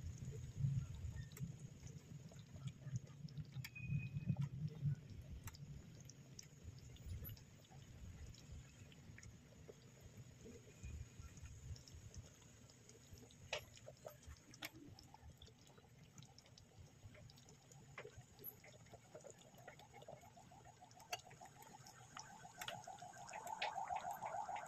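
Faint simmering of uncooked spaghetti in liquid in a pot, with scattered small ticks and pops. There is a low rumble in the first few seconds, and a buzzing hum grows louder near the end.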